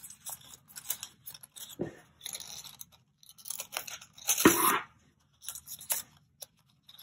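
Scissors cutting a twisted loop of paper down the middle in a series of short snips, with the paper rustling as it is turned in the hands. The loudest snip comes about four and a half seconds in.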